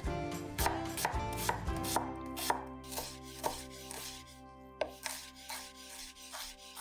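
Chef's knife chopping red onion on a wooden cutting board. The knife strikes come quickly at first, then slow to spaced single cuts about two a second.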